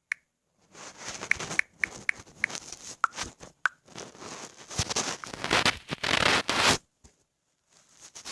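Handling noise on a phone held close to the microphone: short taps and clicks, then a loud scraping rustle from about four and a half seconds in that cuts off suddenly near seven seconds.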